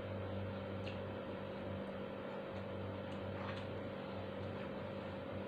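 Steady low machine hum with a few faint clicks from fingers picking food off a plate.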